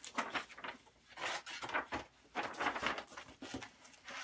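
Sheets of paper and card rustling and sliding against each other as a stack of paper dolls and a manila envelope is handled and shifted on a table, in several short bouts.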